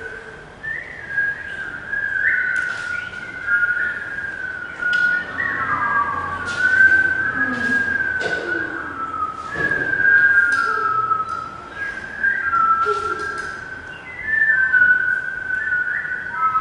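Human whistling in imitation of birds: a wavering whistle that slides up and down around one pitch, with short sharp clicks scattered through it and a few lower sliding tones in the middle.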